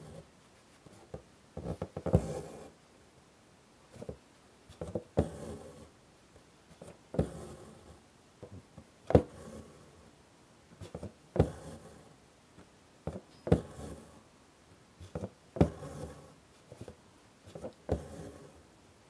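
Embroidery needle pricking through taut fabric stretched in a hoop, each sharp tap followed by the scratchy rasp of floss being drawn through, roughly every two seconds.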